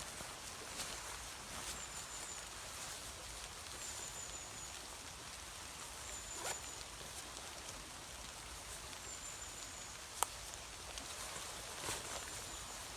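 Steady hiss of light rain falling outdoors, with a few sharp clicks and a brief high, thin bird call repeating every two to three seconds.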